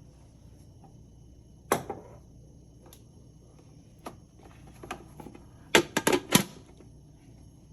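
Sharp clicks and knocks of hard objects being handled, with a quick run of four louder knocks near the end.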